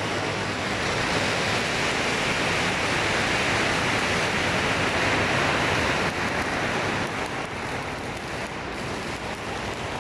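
Electronic firecrackers going off in a dense, continuous crackle, easing a little about six seconds in.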